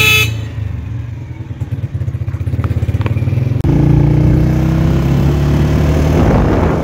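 Single-cylinder Honda motorcycle engine running under way, its exhaust pulsing steadily, then opening up about halfway through, louder and rising in pitch as it accelerates. A brief high tone sounds right at the start.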